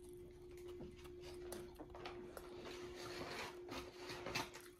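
Faint clicks and rustles of eating and handling takeout food, over a steady faint hum, with a sharper click near the end.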